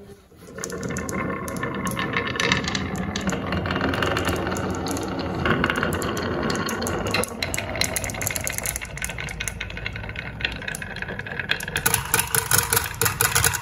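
A batch of marbles rolling down a wooden wave-shaped marble-run track: a continuous rolling rumble with many small clacks as they knock against the wood and each other. Near the end it turns to a rapid clatter as they bunch up and drop into a plastic toy truck.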